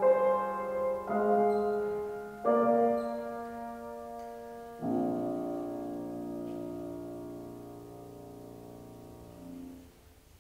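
Grand piano playing the closing chords of a song alone: three chords in quick succession, then a low final chord held and slowly fading for about five seconds before it is damped off near the end.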